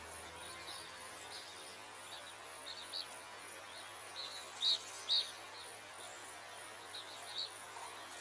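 Outdoor nature sound: short bird chirps scattered through, the loudest a pair about halfway through, over a steady, high-pitched, pulsing insect buzz.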